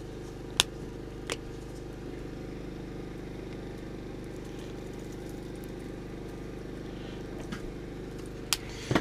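A running engine humming steadily, with a few short sharp clicks or taps over it, the loudest about half a second in.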